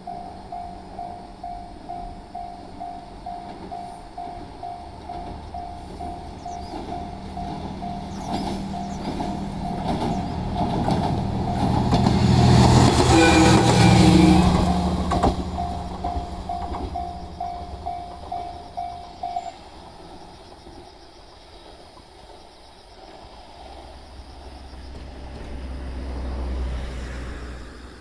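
Level-crossing warning bell ringing in a steady ding-ding, about one and a half strikes a second, as a JR West KiHa 120 single-car diesel railcar passes over the crossing, loudest midway as it goes by. The bell stops a few seconds after the train passes, and a low rumble swells near the end.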